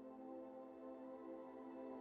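Soft ambient background music: sustained, slowly shifting synth pad tones.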